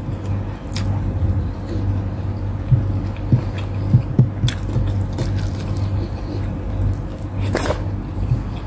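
Close-up eating sounds of a person chewing rice and adobo chicken: small wet mouth clicks and smacks scattered throughout, with a longer, louder noise about three-quarters of the way in. A steady low hum runs underneath.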